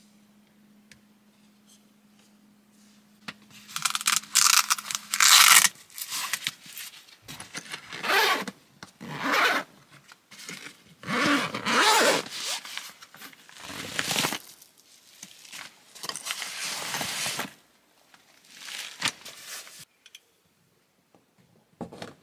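A series of rough scraping and rustling strokes, each up to about a second and a half long, from something being handled at close range, over a low steady hum that stops about five seconds in.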